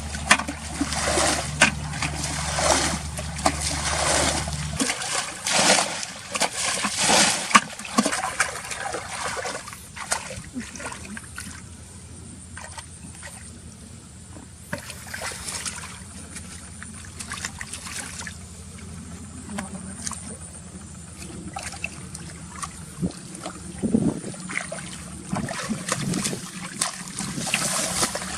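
Water splashing and sloshing in irregular bursts, heaviest in the first ten seconds and sparser after that. A steady low hum cuts off about five seconds in.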